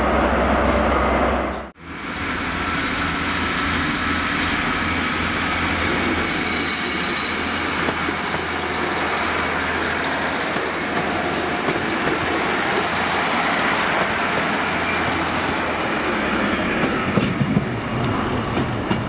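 A diesel intercity power car (Class 43 HST) runs with a steady low hum for the first couple of seconds, and the sound cuts off abruptly. Then a diesel multiple unit rumbles past along the platform on its wheels and rails, with a high wheel squeal for a few seconds in the middle and a few sharp clicks near the end.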